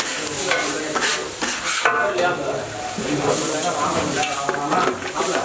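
Hot griddle sizzling while a metal spatula scrapes and tosses torn chapati pieces with masala, with sharp clicks of the spatula striking the griddle.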